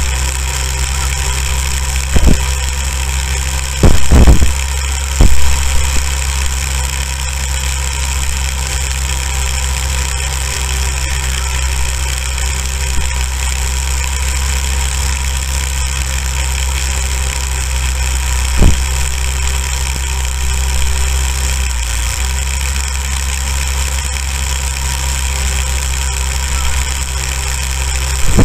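Small go-kart engine running at a steady speed while the kart drives through snow, with a few brief loud thumps about 2, 4, 5 and 19 seconds in.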